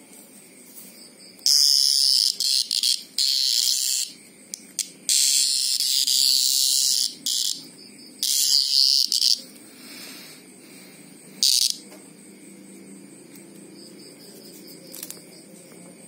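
Green grocer cicada screaming: loud, harsh buzzing distress calls in about five bursts of one to two seconds each, given while it is held and prodded by fingers, with a last short burst near the end of the calling and quiet after.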